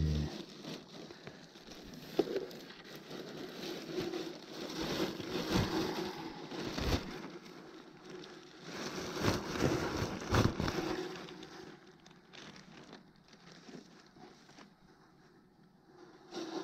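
Close rustling and crinkling from a cloth and a bag being handled, in two main spells with a sharp click early on, quieter in the last few seconds.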